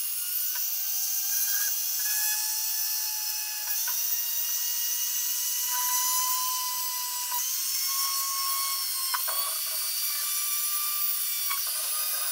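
Dremel rotary tool running with a fine drill bit, drilling small holes into beads: a steady high whine that shifts slightly up and down in pitch, with a few faint knocks.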